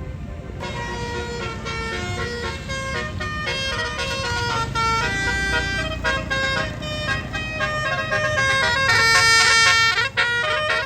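Tour bus 'telolet' horn, a set of musical air horns, playing a tune of quick stepped notes over a low engine rumble, fullest and loudest near the end.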